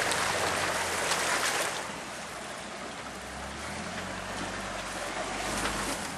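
Rushing, splashing river water, loud for about the first two seconds and then quieter, with a Jeep Wrangler JK's engine running low and steady underneath as it fords the river.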